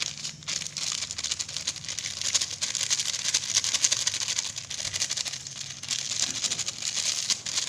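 Thin plastic salt sachet crinkling in the hands while coarse salt is shaken out of it and patters into a plastic bowl. The rustle is continuous, with brief lulls near the start and around five to six seconds in.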